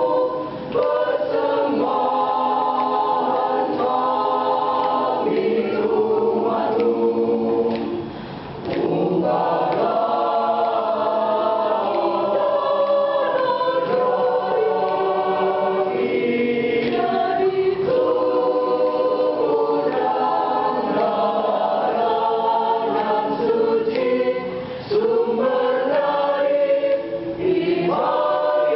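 Choir singing an Indonesian Catholic hymn, many voices together in phrases, with short breaks between phrases about eight and twenty-five seconds in.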